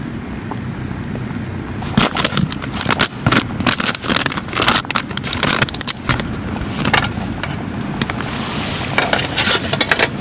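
Metal tongs and food being handled on a metal camp table: a busy run of clicks, taps, scrapes and rustling starting about two seconds in, over a steady low background noise.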